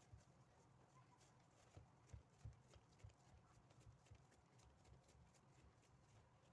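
Near silence: room tone with a few faint, irregular low knocks, the loudest two about two and two and a half seconds in.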